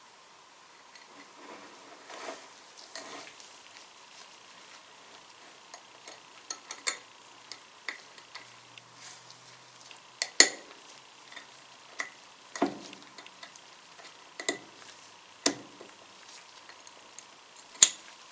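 Small metal parts of a greased vintage Craftsman ratchet clicking and scraping as it is worked back together by hand with a small tool: scattered light clicks and taps, with a few louder clicks in the second half.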